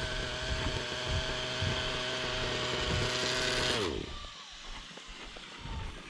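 Two-stroke glow (nitro) engine of an RC helicopter running steadily on the ground, then cut off a little under four seconds in, its pitch falling quickly as it dies. Afterwards only a quieter low rumble remains.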